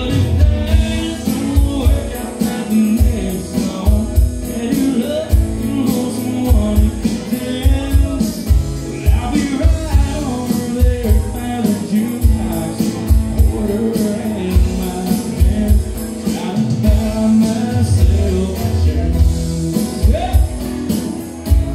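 Live country music: a man singing with a strummed acoustic guitar over a steady beat on an electronic drum kit.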